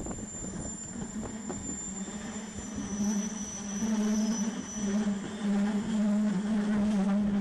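Rhaetian Railway train running along the Bernina line, heard from an open carriage window: a steady low hum over rushing running noise, growing louder about three seconds in.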